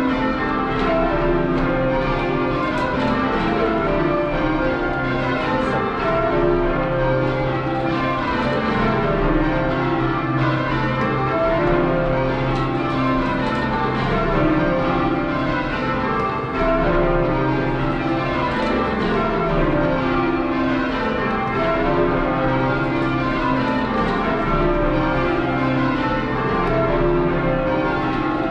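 A ring of twelve full-circle church bells ringing rounds: the same falling run from treble down to the 39 cwt tenor in C repeats over and over at an even pace, heard from the ringing chamber below the bells.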